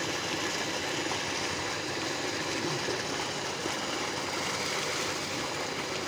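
Steady rushing and splashing of a heavy stream of water gushing from a tubewell outlet pipe into a brick tank.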